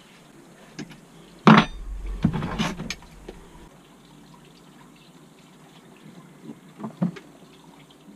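A sharp metal knock, then about a second and a half of clattering, and two lighter knocks near the end: a steel motorcycle handlebar tube being handled and knocked to free the nuts, bolts and washers jammed inside it.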